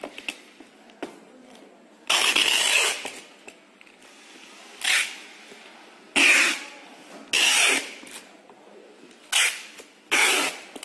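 Packing tape pulled off a handheld tape dispenser gun onto a cardboard carton in about six loud ripping screeches, the longest about two seconds in and shorter pulls after, with a few small clicks between.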